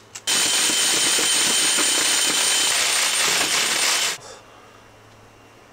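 Cordless drill oversizing a screw hole in a fibreglass boat hull: a short blip of the trigger, then about four seconds of steady, high-pitched whine with the grind of the bit, stopping suddenly.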